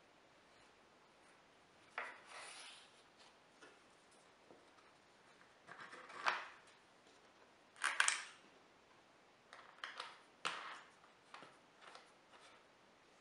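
Plywood stop block and its bolt handled and fitted into the aluminium T-track of a crosscut sled's fence: a scatter of faint clicks, taps and short scrapes, the loudest about two, six and eight seconds in.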